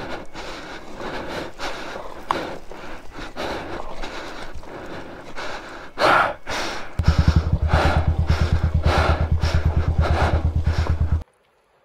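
Motorcycle inching down a steep loose-gravel slope: stones crunching and knocking under the tyres, with the rider breathing hard. From about seven seconds in, the engine's low, even, fast pulsing at idle runs, then cuts off abruptly near the end.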